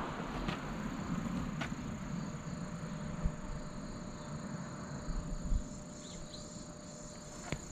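Quiet outdoor ambience with a steady high chirring of insects. The low rumble of a passing car fades away over the first few seconds, and there are a few faint ticks.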